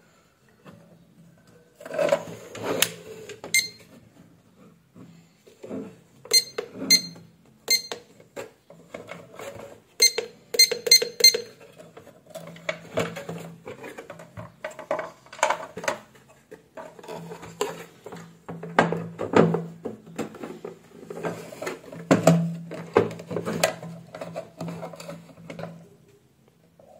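Clicks, knocks and clatter of a plastic weighing-scale casing, ribbon cables and display board being handled and fitted together, with a few sharp, ringing clicks in the middle stretch.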